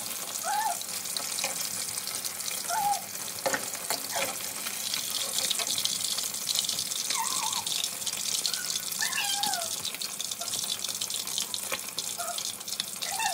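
Masala-coated fish pieces deep-frying in hot ghee in an iron kadhai: a steady crackling sizzle.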